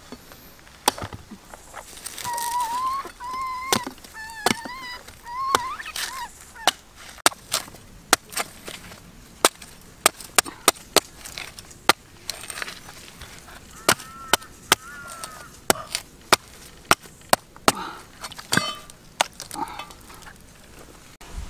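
A machete chopping open a green coconut: many sharp, separate strikes into the husk, spaced irregularly. A wavering high-pitched call sounds between about two and six seconds in, and briefly again about two-thirds of the way through.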